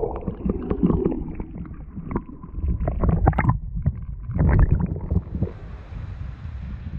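Muffled sea water heard by a camera held underwater: a low rumble of moving water with scattered short knocks. About five seconds in it changes to steady wind noise on the microphone.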